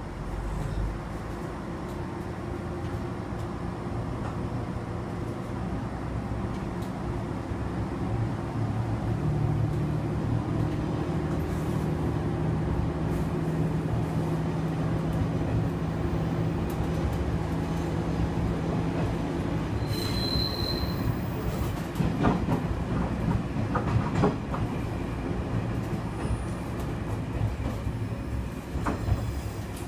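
Diesel railcar running slowly, heard from the driver's cab: a steady engine drone, a brief high wheel squeal about two-thirds through, then sharp clacks as the wheels cross rail joints and points.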